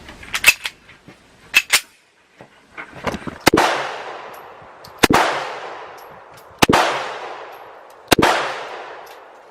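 Walther PK380 pistol firing .380 rounds: four shots about a second and a half apart, each trailing off in a long echo, with a few fainter sharp cracks in the first two seconds.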